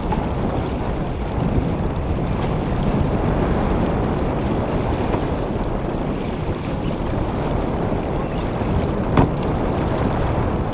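Wind buffeting the microphone over the steady rush of water along the hull of a sailboat under way. A single sharp knock sounds about nine seconds in.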